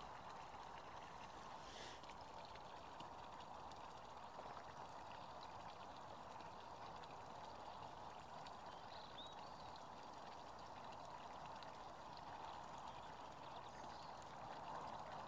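Faint, steady rain patter: an even hiss with many tiny drop ticks.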